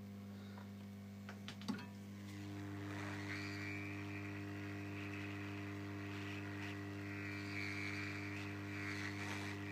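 Hot air rework station blowing over a circuit board, a steady airy hiss with a faint whine that starts about two to three seconds in, over a steady electrical hum; a few light clicks come just before it. It is reflowing the solder under a replacement digital microphone.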